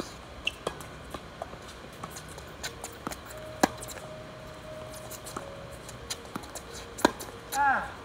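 Tennis rackets striking the ball in a doubles rally on a hard court: a string of sharp pops and the ball bouncing, the loudest hits about 3.5 and 7 seconds in. A short squeal near the end.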